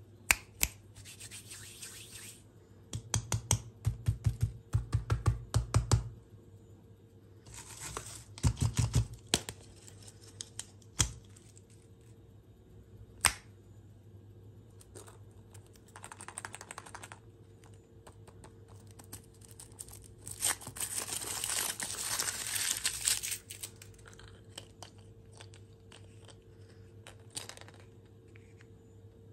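Quick runs of clicks and taps from hands handling foil-wrapped candy. Later, the foil wrapper of a chocolate egg crinkles and tears as it is peeled off.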